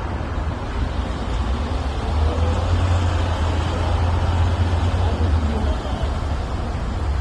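2019 Hyundai Tucson driving: a steady low engine and road drone that grows louder about two seconds in and eases off around five seconds. The owner hears a weird rattle from this car only while pressing the gas pedal, stopping as soon as it is released.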